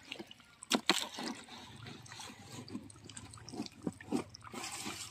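Irrigation water trickling and splashing from the end of a plastic pipe into a muddy field channel, with a couple of sharp knocks just under a second in.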